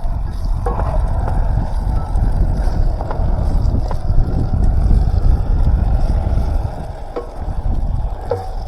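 Diced potatoes frying in olive oil in a pan, stirred with a utensil that clicks and scrapes against the pan a few times, over a steady low rumble.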